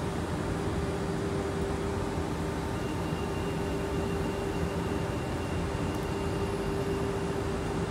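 Renfe Cercanías electric train standing at the platform, its onboard equipment giving a steady hum with one constant pitched tone. A faint higher whine joins about three seconds in.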